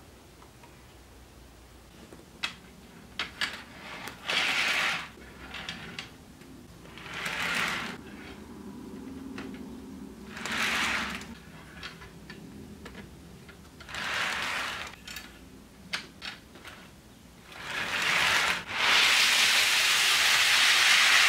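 HO scale model well cars being handled and set on the track: small plastic clicks and several short bursts of rushing noise. Near the end the cars roll along the track, a steady loud rolling rush of their wheels on the rails.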